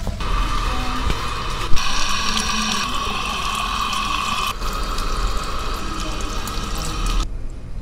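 Water spraying from a handheld shower head onto wet hair and skin during a salon hair rinse, a steady hiss that cuts off abruptly near the end. A sharp click comes a little under two seconds in.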